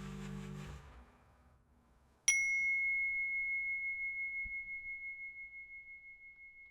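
Background music on mallet instruments fading out, then a single high bell-like chime struck about two seconds in, ringing on with a slow wobble as it dies away.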